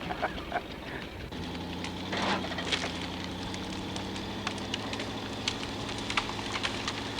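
Jeep Cherokee engine running at low, steady revs, with scattered crackling and snapping of brush and branches as a felled tree is dragged along the ground.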